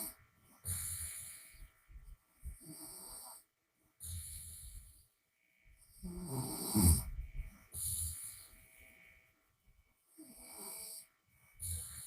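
A woman snoring with her mouth open: repeated rattling snores with breathy airflow, one breath every second or two, the loudest and deepest snore about six to seven seconds in.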